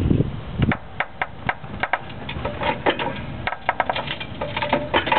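Irregular sharp creaks and clicks from the upper strut-and-spring area of a 2000 Honda Civic's front suspension as the car is slowly jacked up. The owner can't tell whether it is the aftermarket springs or a bushing in the camber kit.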